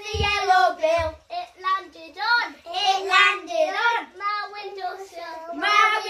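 Several young children singing a rhyme together, loudly and unevenly, with two low thumps in about the first second.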